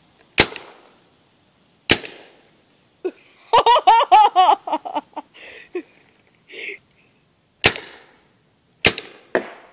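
Paintball gun firing single shots: two about a second and a half apart, then after a pause three more, the last two close together. Between the shots someone laughs loudly for a second or two.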